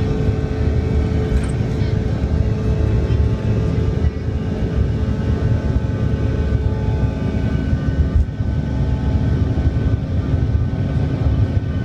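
Bombardier CRJ1000's rear-mounted General Electric CF34 turbofans at takeoff power, heard from inside the cabin during the takeoff roll and liftoff: a loud steady rumble with several steady engine tones over it.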